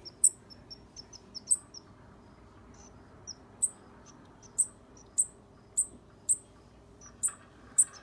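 Fledgling songbirds chirping in short, very high, sharp notes. There is a quick scatter of chips in the first couple of seconds, then single chirps about once a second.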